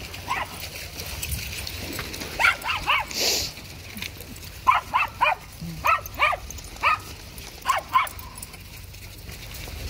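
A dog barking in short, high yips: a few about two and a half seconds in, then a quick run of about eight more between roughly four and a half and eight seconds.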